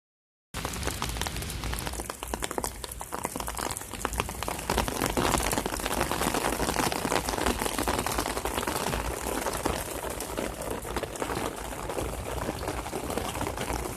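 Heavy rain in a downpour: a dense, steady hiss full of sharp individual drop hits.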